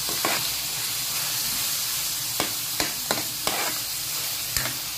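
Sliced pork with onion and garlic sizzling steadily as it is sautéed in a wok, stirred with a metal spatula that knocks and scrapes against the pan about six times.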